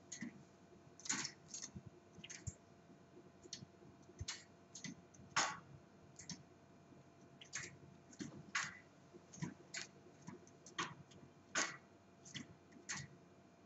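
Small caged bird hopping and clambering about a wire birdcage, making irregular light clicks and taps as its feet grip the metal bars and perch.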